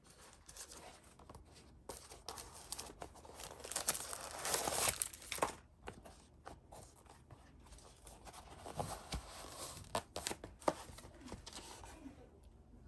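Packaging being handled up close: crinkling and tearing with small clicks, densest about four to five seconds in, then scattered clicks.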